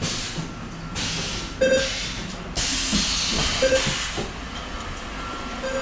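Factory machinery hissing in repeated bursts of released compressed air, each preceded by a short beep-like tone, about every two seconds.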